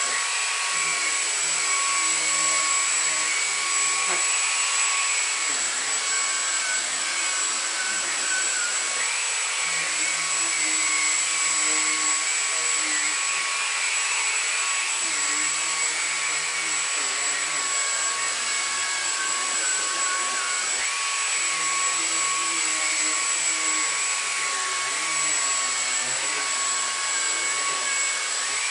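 Numatic Henry Quick cordless vacuum cleaner running steadily with a high motor whine over a hiss of rushing air, being worked over a mattress.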